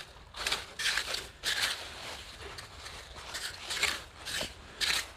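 A small hand clam rake scraping and digging into wet, gritty tidal-flat sand in a series of short, irregular strokes while digging for Manila clams.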